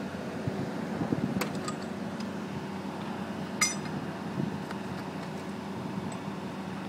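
Scrapyard grab machine's engine running steadily while its claw holds a small car off the ground. A few sharp metal clinks from a wheel brace at the car's wheel, one about a second and a half in and a louder one about halfway.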